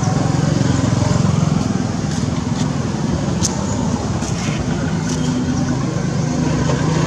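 Steady low rumble at an even level, with a few faint, short high chirps in the middle.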